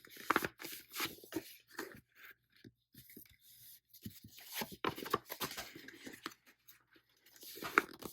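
Sheet of colored paper being accordion-folded: irregular crisp rustles and crackles as it is creased and flipped over, one louder crease near the end.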